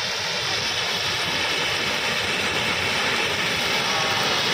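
Freight train's hopper wagons rolling along the track: a steady, dense rush of wheel-on-rail noise, heard close to the wheels from the side of a moving wagon.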